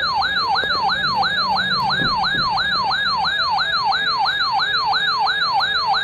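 Electronic siren in yelp mode: a fast up-and-down wail that repeats about three and a half times a second without changing.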